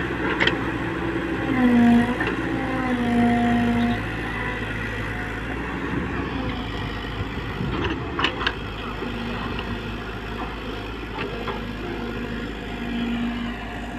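JCB excavator's diesel engine running with the hydraulics working, a whine rising under load in the first few seconds and returning more faintly later. A few sharp knocks come near the start and about halfway through.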